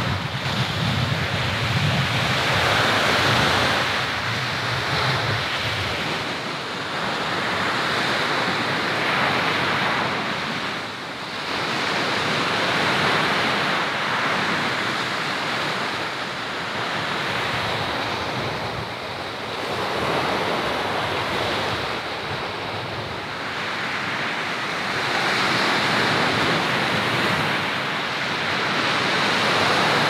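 Ocean surf washing onto the shore, a steady hiss of breaking waves that swells and eases every few seconds, with some wind on the microphone.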